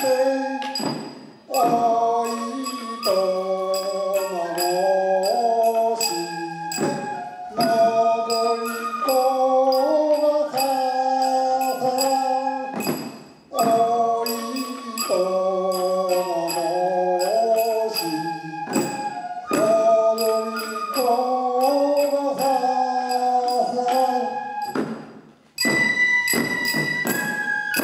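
Slow traditional shishimai (lion dance) music: voices singing in long phrases that break about every six seconds, with drum strikes. Near the end a high flute note is held.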